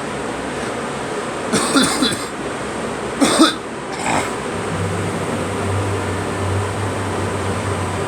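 A person coughing in three short bursts: one about one and a half seconds in, a sharper one around three seconds, and a weaker one about a second later, over steady background noise.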